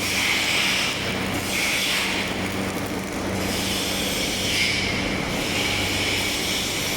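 Automatic pipeline welding machine running: a steady hiss over a low hum, the hiss swelling and easing every second or two.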